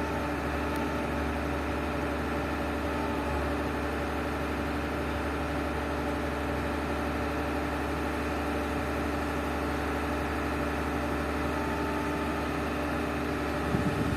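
Excavator's diesel engine running at a steady, unchanging speed, with a few sharp knocks just before the end.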